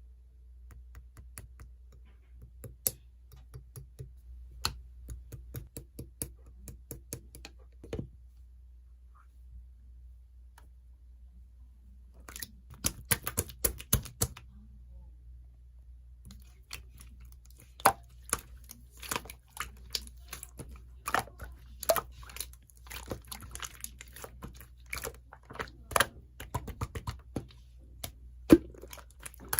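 Slime being squished and pressed by hand, giving a run of sharp clicks and pops: sparse at first, a dense flurry about twelve seconds in, then steady close clicking through the second half, over a faint low hum.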